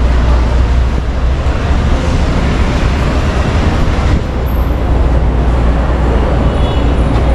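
Loud, steady city street noise with a deep rumble: traffic on a street running under an elevated subway line.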